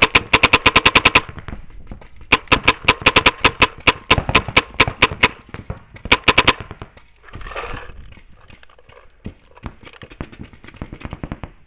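Paintball marker firing rapid strings of shots: three fast bursts, the last one short, then a few scattered single shots.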